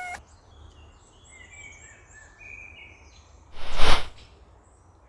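Faint birds chirping, then about three and a half seconds in a loud, short rushing whoosh.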